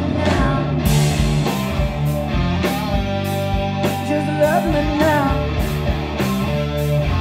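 Live rock band playing an instrumental passage: guitar and bass over drums, with cymbal hits about twice a second and bending guitar notes around the middle.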